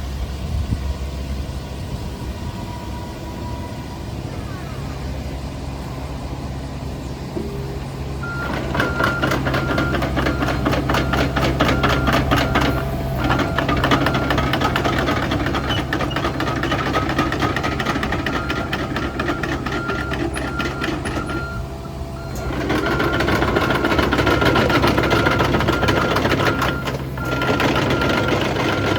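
Komatsu PC45MR-5 mini excavator's diesel engine running steadily; about eight seconds in it picks up revs and load with a dense, fast rattle as the machine is worked. A rapid high beeping alarm sounds along with the working, breaking off briefly a few times.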